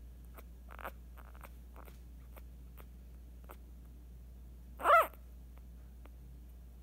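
An eight-day-old Scottish Terrier puppy gives one short, high squeak in its sleep about five seconds in. The squeak rises and falls in pitch.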